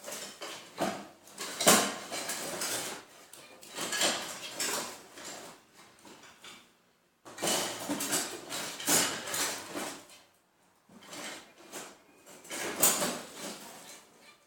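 Small hard objects being handled and rummaged through, clattering and clicking in several irregular bursts with short pauses between them.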